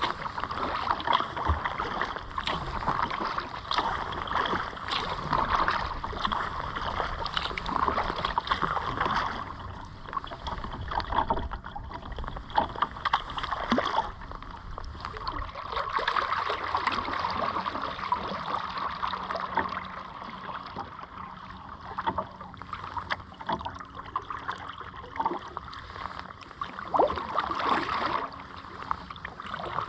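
Kayak paddle strokes splashing and dripping in the water, irregular and ongoing, over a steady rush of moving water.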